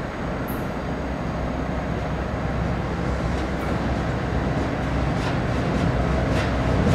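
Korean diesel railcar running on the line: a steady rumble that grows slowly louder. From about halfway in there are light ticks, typical of wheels passing over rail joints.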